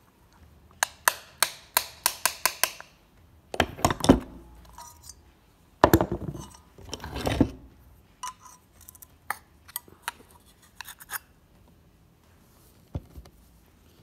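A hammer taps a steel socket used as a drift, pressing a bulb socket into a metal turn-signal lamp housing. It starts with about ten quick light taps, then a few heavier blows around the middle, then lighter metal clinks.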